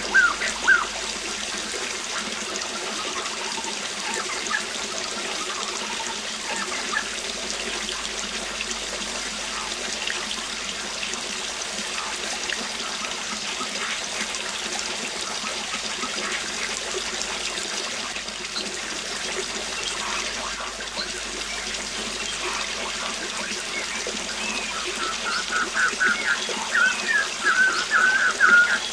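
Waterfall running steadily, with birds calling now and then over the rush of water. Near the end a bird starts a quick run of repeated calls that stand out louder than the water.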